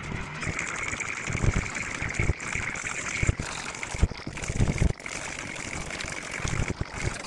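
Plastic chainsaw housing being handled and taken apart by hand: irregular knocks, bumps and clicks over a steady background hiss.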